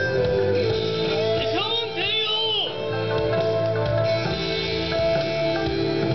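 Backing music of held notes with plucked strings, with a rising-and-falling vocal line about two seconds in.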